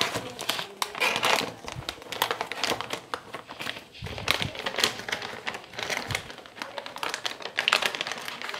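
Plastic packaging crinkling as a display in a translucent antistatic bag is handled and lifted out from bubble wrap: a dense run of irregular crackles and rustles.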